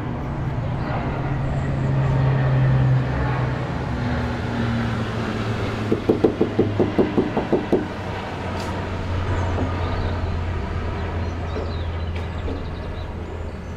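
An engine runs steadily throughout, its low hum dropping in pitch in two steps, about three seconds in and again about eight seconds in. Midway through comes a quick run of about a dozen regular knocks or rattles, about six a second.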